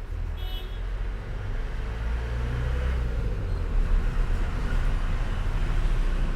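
Steady low rumbling background noise, with one short high-pitched chirp about half a second in.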